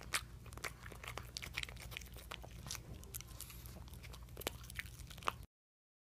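A pug eating a peeled banana from a hand: a quick, irregular run of wet lip-smacking and chewing clicks that stops abruptly about five and a half seconds in.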